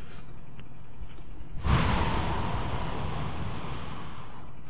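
A long breath blown out close to the microphone: a sudden puff about a second and a half in, then a hiss that fades over about three seconds.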